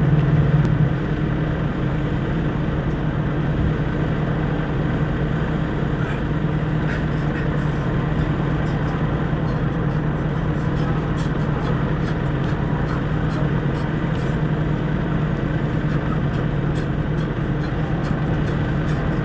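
Steady low hum of an idling diesel truck engine. Light taps of sneakers on asphalt come in from about six seconds on as he steps and raises his knees.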